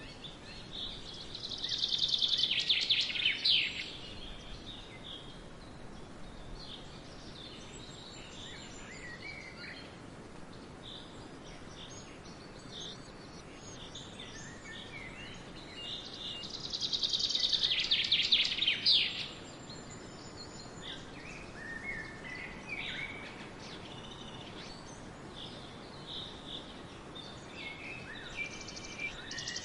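Swallows twittering in scattered chirps over a steady hiss of wind in a barley field. Two loud bursts of rapid trilling chirps come near the start and about halfway through.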